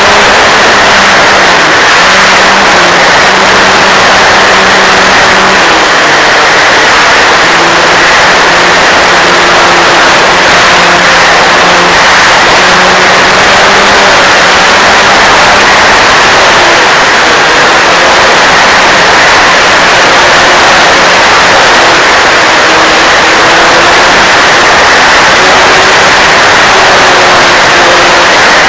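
Remote-control model plane in flight: a loud, steady rush of wind noise with the motor and propeller tone under it, shifting up and down in pitch with the throttle.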